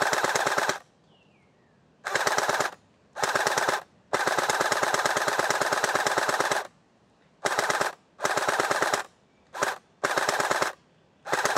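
Splatrball SRB400 gel blaster firing on full auto in bursts, a rapid string of shots from its electric gearbox, which is fitted with metal gears and a stiffer M90 spring. Several short bursts, with one long burst of about two and a half seconds near the middle.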